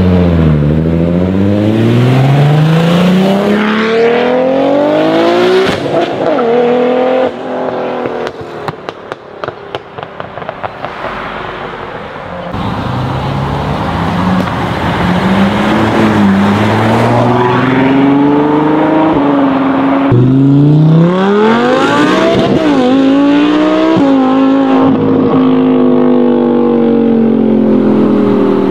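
A run of high-performance sports cars accelerating hard one after another. Each engine note climbs in pitch and drops back at the gear changes. In the middle there is a quieter stretch of exhaust crackles and pops.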